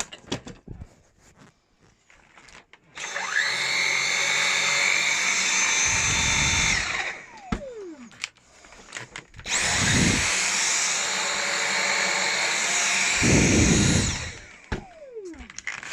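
Dyson V7 Motorhead Pro cordless stick vacuum's motor switched on twice, running about four seconds each time. Each run starts with a rising whine and holds a steady high-pitched whine. After the trigger is released it winds down with a falling whine.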